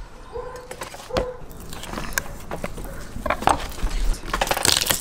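Knocks, clicks and rustling as a raw lamb carcass and a knife are handled on a wooden cutting board, with a sharp knock about a second in and the loudest rustling and knocking near the end.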